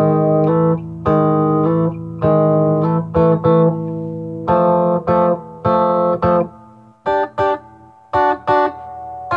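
Gibson Melody Maker electric guitar played through an Acoustic Control Corp 260 solid-state head into 2x12 cabinets, with the tone set for the manual's bass-and-organ sound. It plays a run of chords: at first each rings about a second with a full low end, and near the end they become shorter, choppier stabs.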